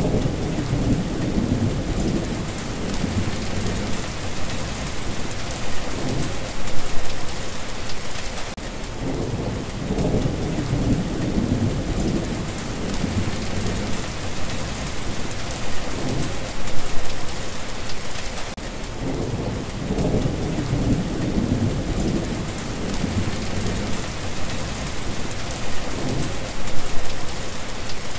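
Steady heavy rain hissing on surfaces, with low rolls of thunder rumbling under it that swell and fade several times. The same stretch of storm repeats about every ten seconds, as a loop.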